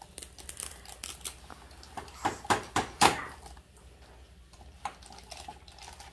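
Scissors snipping the plastic cable ties that hold a baby bouncer's frame together: several sharp snaps close together about two to three seconds in, among lighter clicks and rustling of plastic parts.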